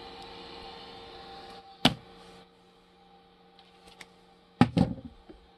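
Low steady hum of the enclosed CoreXY 3D printer after its print, a single sharp click about two seconds in, then quieter, with a short clatter of knocks near the end.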